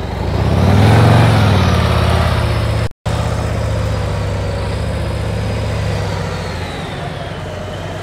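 Large touring motorcycle's engine running as the bike rides in, swelling about a second in, then steady, and easing off to a lower, quieter note near the end as it slows to a stop. The sound cuts out for an instant about three seconds in.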